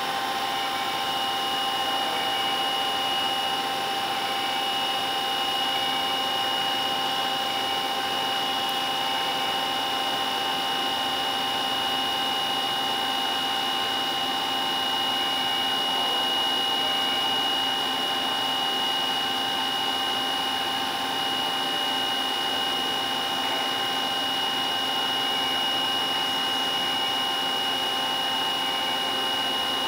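DoALL DCDS-750SA dual-column horizontal metal-cutting band saw running with its blade feeding down into metal stock. It makes a steady whine of several fixed tones, highest and strongest a high-pitched ring, over an even hiss, unchanging throughout.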